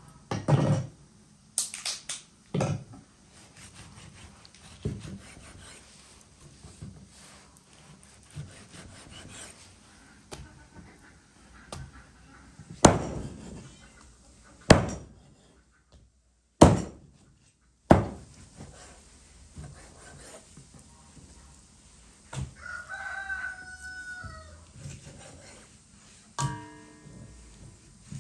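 Large kitchen knife chopping through a raw turkey and striking a thick wooden chopping block: a series of loud, irregularly spaced thunks. A rooster crows in the background about two-thirds of the way through.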